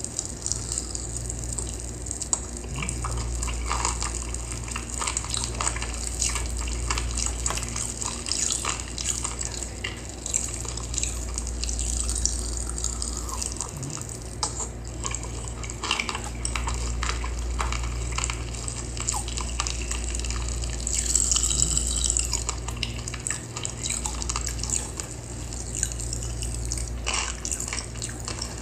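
Close-up eating sounds: wet chewing, lip-smacking and slurping of instant noodles, a steady patter of small wet mouth clicks.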